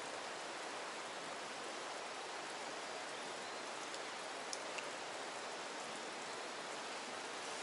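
Steady hiss of falling water, with two faint ticks about halfway through.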